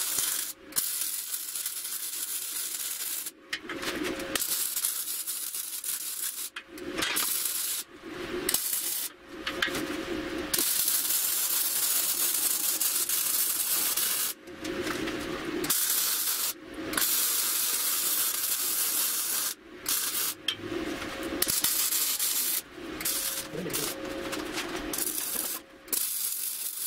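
MIG welder laying weld beads on steel fork tubing: a loud crackling hiss in runs of one to four seconds, stopping and starting about a dozen times, with a steady hum under each run.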